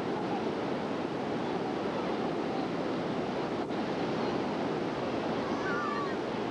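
Ocean surf washing onto a shallow sandy beach, a steady rushing noise.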